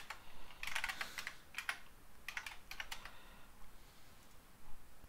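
Typing on a computer keyboard: quick runs of keystrokes, thinning out after about three seconds.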